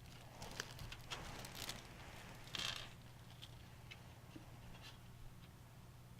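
Faint clicks, taps and scrapes of hands working with small screws and computer parts, with a brief rustle about two and a half seconds in, over a steady low hum.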